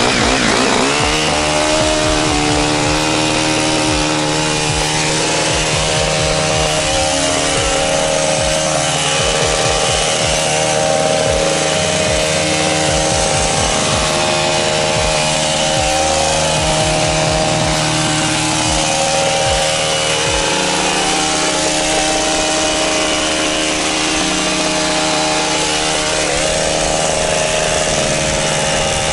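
Gas-powered pole hedge trimmer's two-stroke engine revving up to full throttle in the first second, then running at high speed while its blades cut a shrub, with small dips in engine pitch.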